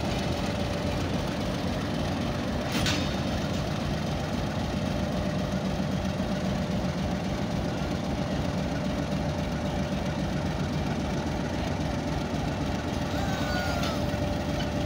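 Pakistan Railways HBU-20 diesel-electric locomotive's engine idling steadily with a faint steady whine while it turns on a turntable. One short sharp noise comes about three seconds in.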